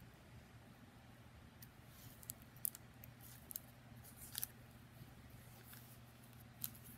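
Plastic sleeve pages of a small trading-card binder clicking and crinkling as they are flipped: a handful of faint, sharp ticks at uneven intervals over a steady low hum.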